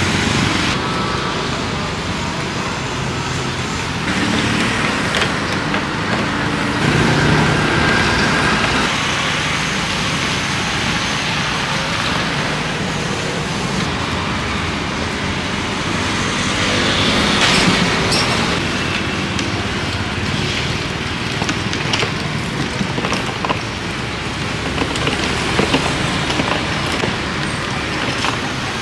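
Steady street traffic: engines of passing cars, tuk-tuks and motorbikes, swelling louder twice as vehicles go by.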